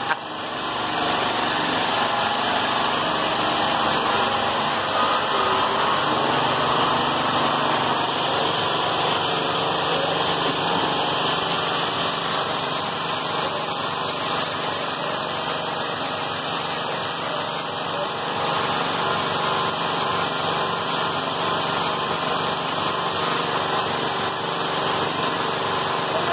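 A small motor or engine running steadily, a continuous mechanical drone with hiss that does not change through the whole stretch.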